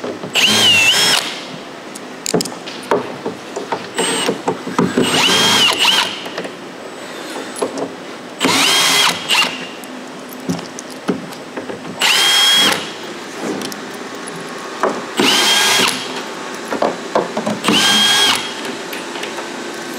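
Cordless drill backing screws out of a plywood crate lid: six short runs of the motor, each a whine that climbs in pitch and then holds for about a second, with clicks and knocks of handling between the runs.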